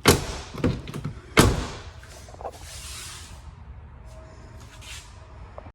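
A Suburban's door being worked by hand: three sharp knocks and thuds in the first second and a half, the loudest near the end of that stretch, then a soft rustle.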